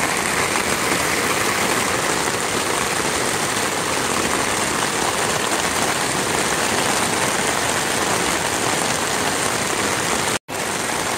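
Heavy downpour: a steady, even hiss of pouring rain. It cuts out for an instant near the end.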